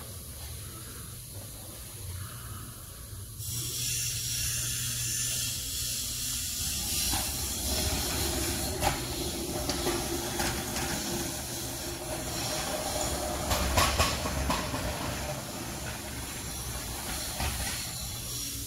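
A steady hiss that starts abruptly a few seconds in, with a few short knocks and clatters later on.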